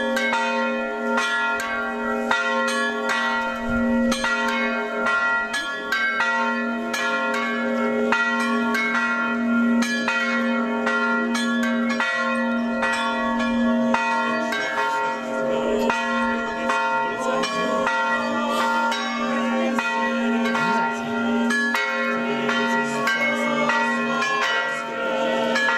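Church bells chiming rapidly: several quick strikes a second over the steady hum of a larger bell.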